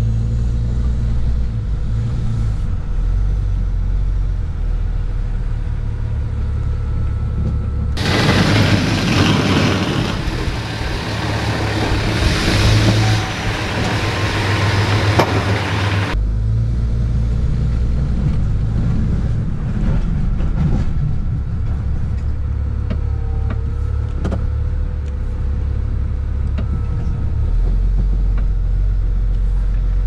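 Plow truck's engine droning steadily as heard inside the cab while plowing snow. About eight seconds in the sound cuts to a louder, hissier outdoor recording of the truck plowing, then after about eight seconds cuts back to the in-cab drone.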